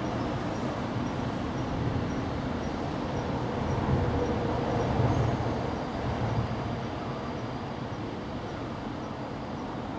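Steady low rumble of distant traffic, swelling louder about four to six seconds in and easing off again.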